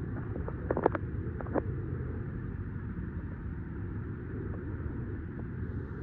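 Steady low rumble of a running vehicle engine, with a few short sharp knocks about a second in.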